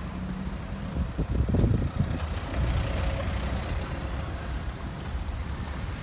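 Cars driving across a railway level crossing: engines running and tyres rumbling over the crossing, with a few low thumps between about one and two seconds in.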